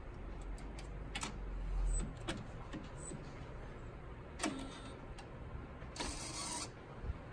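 A few sharp plastic clicks and knocks from handling the ink dampers on a UV flatbed printer's printhead carriage, over a low rumble that fades after about two seconds. A short hiss comes about six seconds in.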